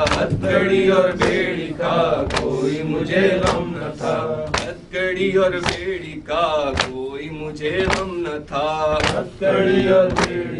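A male voice chanting a noha, an Urdu mourning lament, to a steady beat of open-hand chest strikes (matam), about one strike a second.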